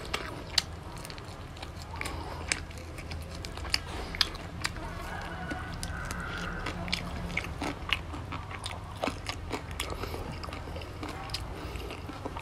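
Close-up eating sounds: biting and chewing on grilled pork rib, with many short, sharp crunches and clicks as the meat is gnawed off the bone.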